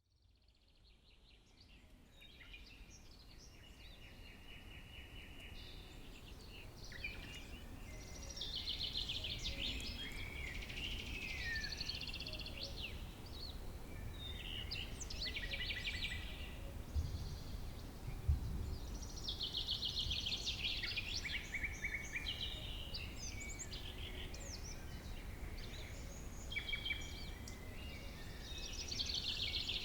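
Summer meadow ambience: several small songbirds singing and chirping at once, with quick trills and sweeping notes, over a steady low background rumble. The sound fades in over the first few seconds.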